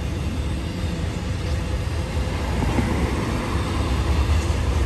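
Intermodal freight train's cars rolling past, a steady low rumble of wheels on rail that builds slightly near the end.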